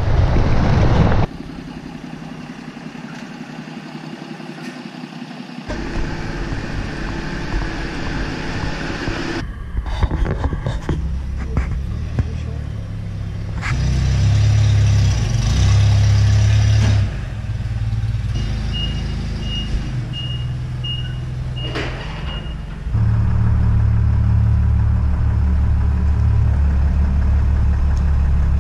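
A string of short clips: the low, steady rumble of a truck towing a loaded gooseneck flatbed trailer, broken by a stretch of scattered clicks and knocks and by a run of about six short, evenly spaced high beeps. The towing rumble returns and holds through the last part.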